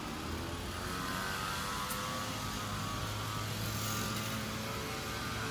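A steady mechanical hum: a low drone with fainter, higher steady tones over a background rush, growing slightly louder.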